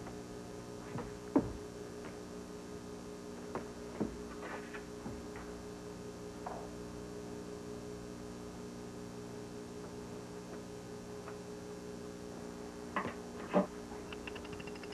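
Steady electrical mains hum with a few faint knocks and clicks scattered through it. The loudest knock comes near the end.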